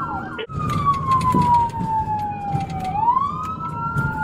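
Police car siren switching from a rapid yelp to a slow wail just after the start, the pitch falling for a couple of seconds and then rising again. From about three seconds in, a second siren wails out of step with it, over engine and road noise.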